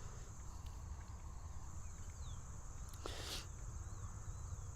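Faint steady high-pitched drone of insects, with low wind rumble on the microphone and a brief rushing noise about three seconds in.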